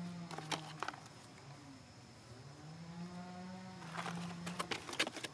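Two long, low, drawn-out animal calls, each gently rising then falling, the second lasting about two seconds. Sharp crackles, like dry leaves and twigs being stepped on, come about half a second in and again near the end.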